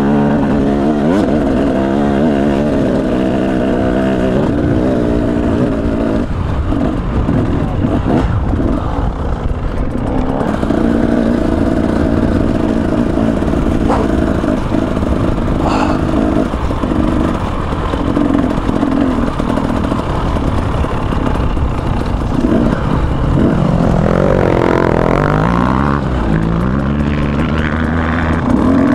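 KTM 300 EXC's single-cylinder two-stroke engine under way off-road, its pitch rising and falling as the throttle is opened and closed. A few sharp knocks and clatters come in between.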